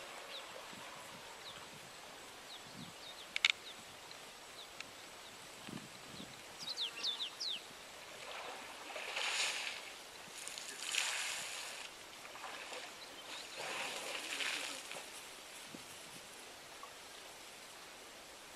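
Quiet waterhole ambience with a sharp click a few seconds in and a few quick bird chirps, then three one-second rushes of splashing water as an African elephant wades in the shallows.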